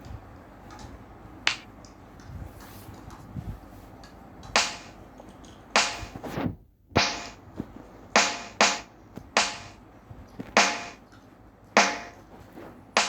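A series of about ten sharp cracks or hits at irregular intervals, each dying away quickly, over a faint background.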